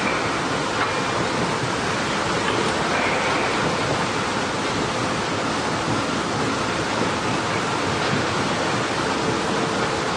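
Heavy wood-processing machinery running with a steady, dense noise that does not let up.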